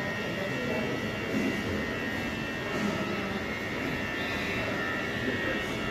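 Steady mechanical drone with a faint, constant high whine: the background hum of a large building such as ventilation or air handling.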